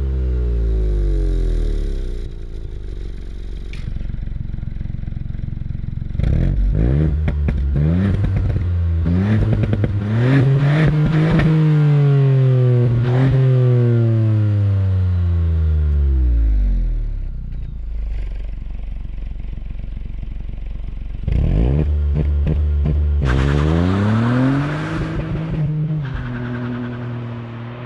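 2019 Ford Fiesta ST's 1.5-litre turbocharged three-cylinder engine heard from behind its exhaust: revs falling, then several rev blips with a run of sharp cracks from the exhaust, settling back to idle. About two-thirds of the way in the car pulls away hard, the engine note rising, dropping at an upshift, and fading as it drives off.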